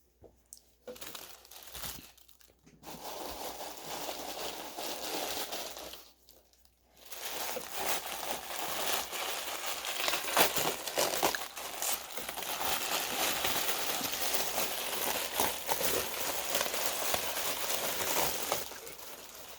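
Packaging wrap crinkling and rustling as an item is unwrapped by hand, a busy crackle with many small clicks that pauses briefly about six seconds in.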